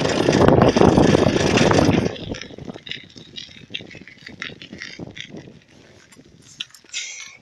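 Wind rushing over the microphone of a camera on a moving bicycle, loud for about two seconds, then dying away to scattered light clicks and rattles.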